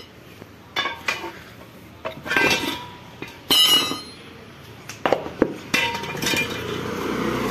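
A string of metal clinks and knocks, one ringing out about three and a half seconds in, as a tyre is pulled off a motorcycle's alloy wheel rim and the rim and steel tools are handled on concrete.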